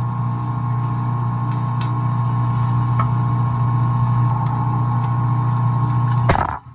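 Microwave oven running with a steady electrical hum, with a few faint ticks; it cuts off suddenly near the end.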